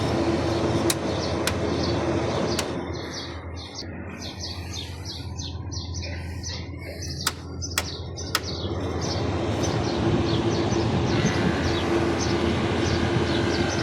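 Steady mechanical hum, with birds chirping in short bursts and a few sharp clicks.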